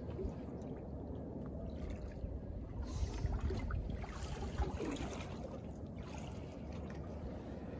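Quiet ambience aboard a small open boat drifting at its nets: light water lapping at the hull, with a few faint knocks.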